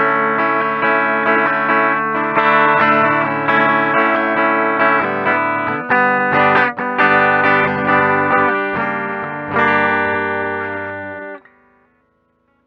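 Demo song of guitar played through effects and distortion, holding sustained chords, then stopping suddenly about eleven seconds in, leaving near silence.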